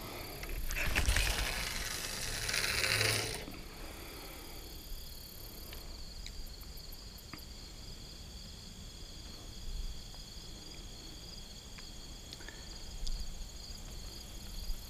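Steady high-pitched chorus of insects buzzing, with a louder hissing rush for about three seconds near the start and a few faint ticks later on.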